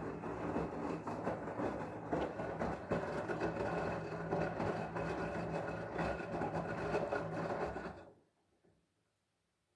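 LG washing machine running a wash cycle: a steady motor hum under a rattling, churning drum noise, which stops abruptly about eight seconds in.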